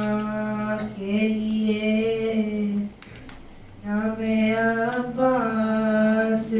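A boy's solo voice chanting a Shia mourning lament through a microphone, in long held melodic notes, with a break of about a second near the middle.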